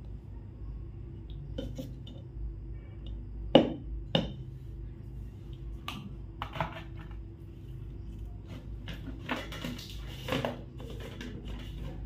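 A spoon knocking and scraping against an ice-cream cup and a clear plastic grinder jar as ice cream is scooped in: a string of sharp taps and clinks, the two loudest about three and a half and four seconds in.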